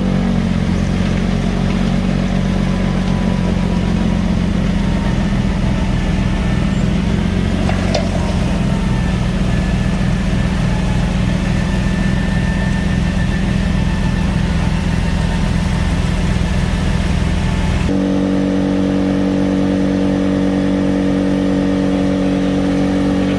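A motor vehicle's engine running steadily with an even hum. Its note changes abruptly about 18 seconds in.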